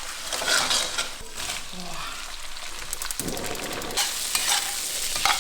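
Hotpot base, soybean paste and chili oil sizzling in hot oil in a pan while being stirred, stir-fried until fragrant.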